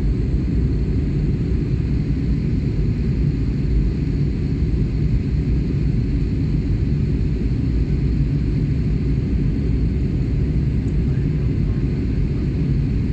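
Steady, deep rumble of jet airliner cabin noise in flight: engine and airflow noise heard from a window seat.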